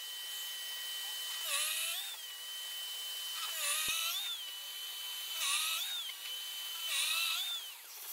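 A power drill with a Forstner bit boring holes into a wooden block: a steady motor whine, with a burst of cutting noise four times as the bit bites into the wood, the motor's pitch bending under the load each time.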